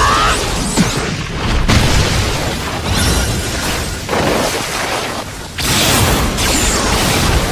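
Anime battle sound effects: a run of heavy booms and explosion blasts with crashing, shattering rock debris. Fresh blasts hit suddenly about two, four and five and a half seconds in.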